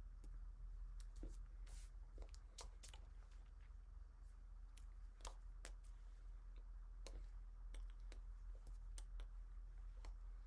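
Near silence: a low steady room hum with scattered faint clicks, the small mouth and hand sounds of a person signing.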